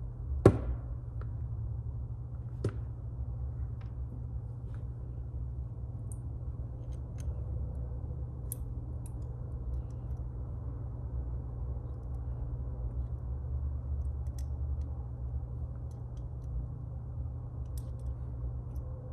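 Small clicks and taps of hands and tools on phone parts during reassembly: one sharp click about half a second in, a lighter one a couple of seconds later, then scattered faint ticks, over a steady low hum.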